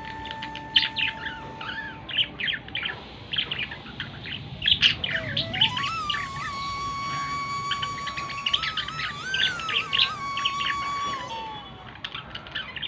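Pet birds such as lovebirds and budgerigars chirping in many quick, overlapping calls. A long held whistle-like note rises at about the middle, holds steady with small wobbles for some five seconds, then falls away.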